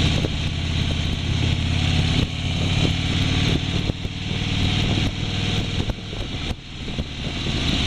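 Motorcycle engine running steadily, under a continuous rushing noise, with a brief drop in level about six and a half seconds in.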